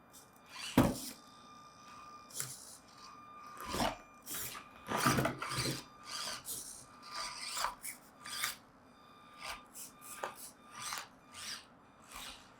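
Axial SCX24 micro RC crawler working over a crawler course: irregular scrapes and knocks of its tires and chassis on the obstacles, with a sharp knock about a second in and a thin motor whine that comes and goes.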